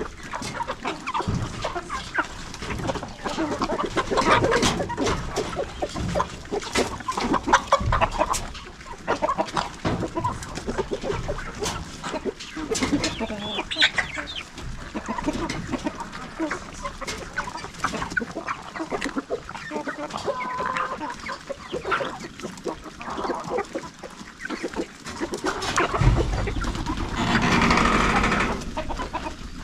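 Chickens clucking while loose in a farmyard, with many short clicks and taps among the calls. About 26 s in, a louder rushing noise lasts a few seconds.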